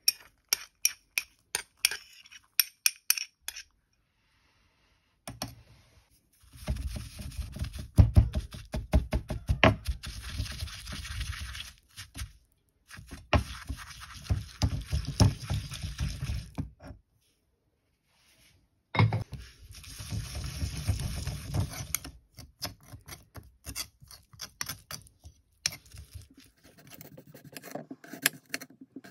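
Pieces of chopped garlic dropping into a stone mortar with a quick run of clicks, then a stone pestle grinding garlic and dried thyme against the mortar in three long spells of rough scraping. Near the end, a knife clicks through a raw potato on a glass board.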